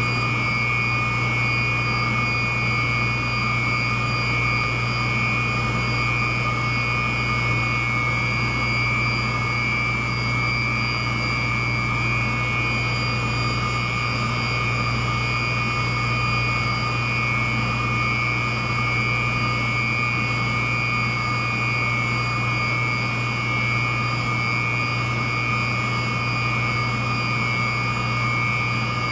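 York YK centrifugal chiller running at about 86% load: a steady mechanical drone with a low hum and a constant high-pitched whine.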